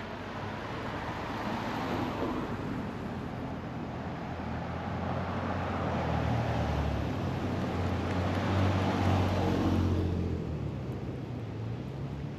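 A motor vehicle passing, its engine hum and road noise swelling over several seconds and dropping away about two seconds before the end.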